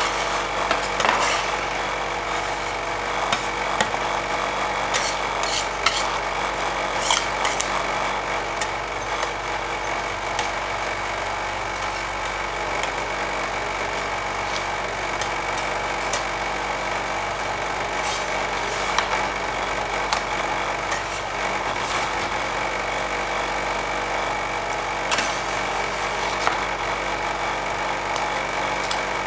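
Steel scraper spatulas scraping, spreading and chopping ice cream mix on the metal cold plate of an ice cream roll machine, with irregular sharp taps of the blades on the plate. Under it runs the steady hum of the machine's refrigeration unit.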